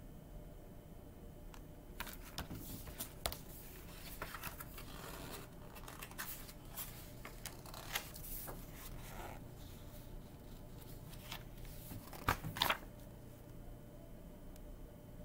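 Faint rustling and clicking of a hardcover picture book being handled and its pages turned, with two sharper taps near the end.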